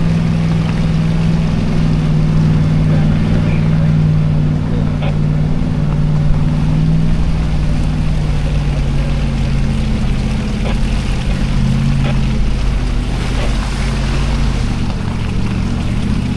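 Lexus GX470's 4.7-litre V8 engine running at low, steady revs while the SUV crawls along the trail. Its pitch shifts a little near the end, and a few light clicks come through.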